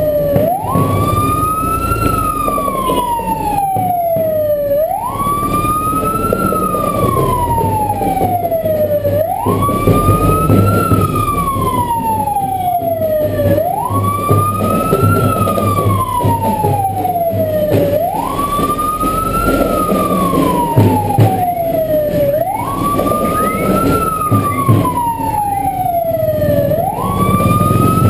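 Electronic siren wailing in a slow repeating cycle, about six times: each cycle jumps up quickly, climbs a little more, then slides slowly back down over about four seconds. A vehicle engine rumbles underneath.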